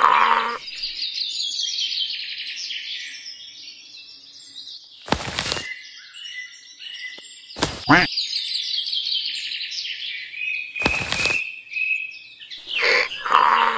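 Small birds chirping and trilling steadily, broken by three short, loud bursts of noise spread through the middle.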